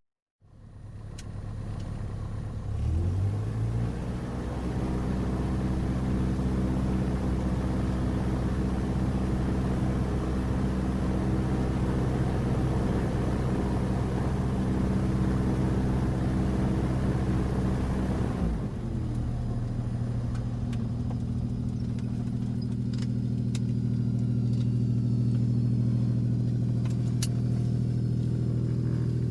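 Single-propeller airplane engine running at idle, heard from inside the cabin. About three seconds in it speeds up to a fast idle and holds steady, then drops back to a lower, steady idle a little past halfway. A few faint clicks come near the end.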